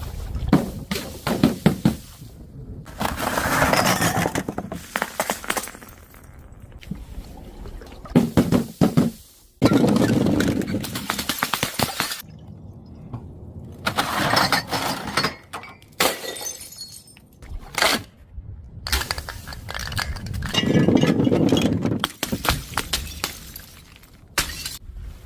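Glass bottles breaking and being crushed: a series of separate crunching, shattering bursts of a second or two each, with short pauses between them.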